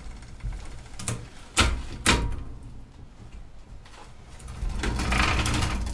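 Old Raleigh Record ten-speed's front derailleur and chain shifting clunkily between chainrings, with two sharp clunks about a second and a half and two seconds in, then the chain and drivetrain running louder from about five seconds in. The front shifting is poor and clunky.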